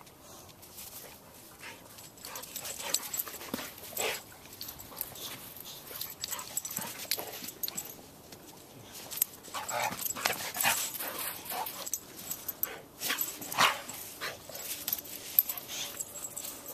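Dogs at rough play, giving short whining and grunting sounds, mixed with scratchy scuffs as the Boxer digs and rolls in the sand. The sounds come in irregular clusters, loudest around the middle and near the end.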